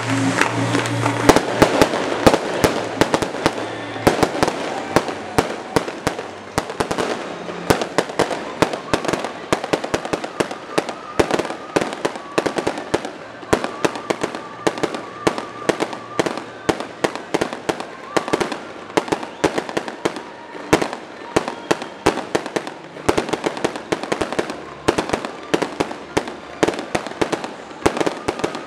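Aerial fireworks display going off in rapid succession: a dense run of sharp bangs and crackling reports, several a second. Music fades out in the first second or two.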